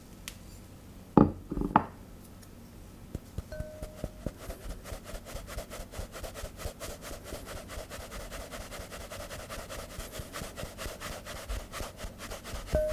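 Two knocks about a second in, then a hand whisk scraping steadily round a mixing bowl as madeleine batter is mixed, at about three strokes a second.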